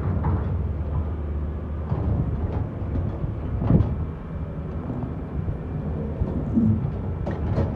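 Heavy diesel dump truck engines running with a steady low rumble, broken by a few sharp knocks and clanks, the loudest about four seconds in.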